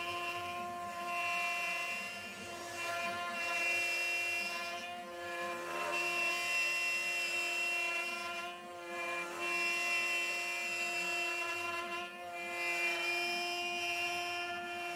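CNC wood router's spindle motor running with a steady whine while the bit mills a curved cut in a wooden sheet. The cutting noise swells and eases about every three seconds.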